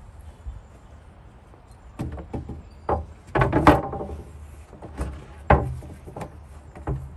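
Solid pine dresser top being set onto the dresser's carcass and shifted into place: a series of wooden knocks and thuds. The loudest comes about three and a half seconds in, with a short scrape.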